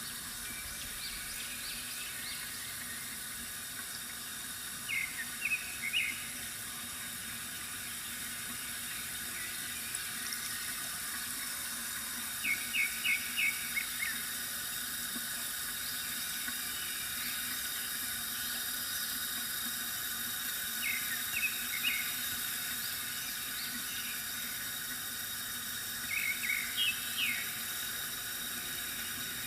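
Water trickling steadily from a bamboo fountain, with birds chirping over it in short bursts of three or four quick high notes, four times, several seconds apart.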